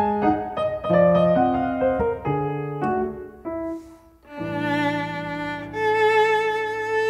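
Viola and piano playing: a quick passage of short, detached notes, a brief break about four seconds in, then long held notes with vibrato.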